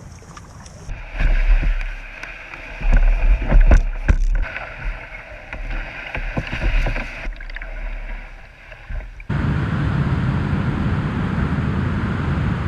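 Kayak being paddled through shallow creek water: irregular paddle splashes and knocks against the hull, with wind rumbling on the camera's microphone. About nine seconds in, the sound cuts abruptly to a steady rushing noise.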